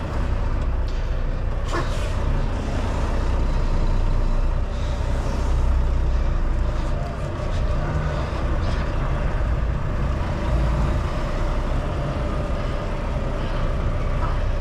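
Semi-truck diesel engine running at low speed while the tractor-trailer is backed into a tight dock spot, heard from inside the cab; the rumble rises and falls a little, with a short click about two seconds in.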